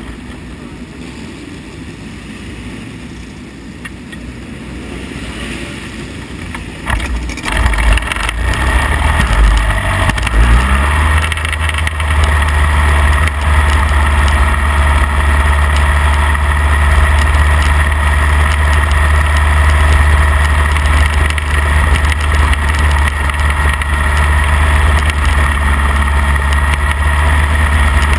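Midget race car engine heard from the cockpit: quieter at first, it jumps sharply louder about seven seconds in, rises briefly in pitch, then holds a loud, steady drone.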